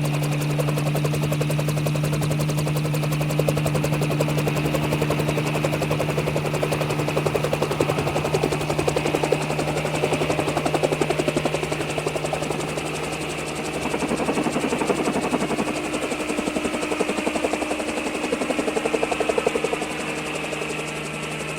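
Helicopter running, its rotor blades chopping in a rapid, even pulse over a steady engine hum and a high whine, the level swelling and easing slightly.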